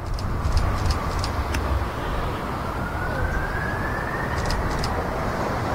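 Boeing 747-400's four turbofan engines at takeoff thrust on the takeoff roll: a steady, deep roar with a whine that rises slowly in pitch as the engines spool up.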